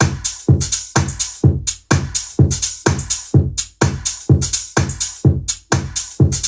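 Electronic dance music with a steady drum-machine beat and heavy bass, played through Rubyoung R830 and R630 portable speakers wired by aux cable.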